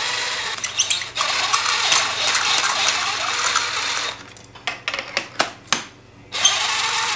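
Cordless impact spinning loosened spark plugs out of their wells, as steady whirring runs. The whirring stops after about four seconds, gives way to a few sharp metal clicks and clinks as the socket is moved to the next plug, and starts again near the end.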